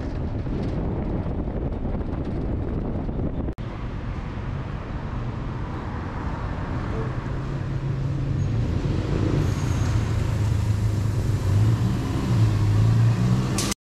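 A motor vehicle on the road: steady road and wind noise, with a low engine hum that grows louder over the last few seconds and then cuts off suddenly.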